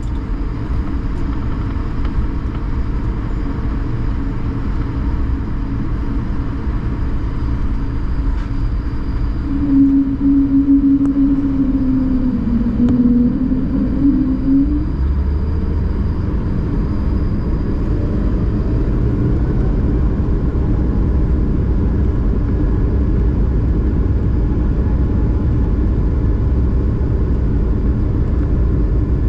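Cabin noise inside an Airbus A220-300, its Pratt & Whitney PW1500G geared turbofans running with a steady low rumble. Near the middle a strong tone holds for a few seconds and dips in pitch; after that the low rumble grows heavier and stays steady.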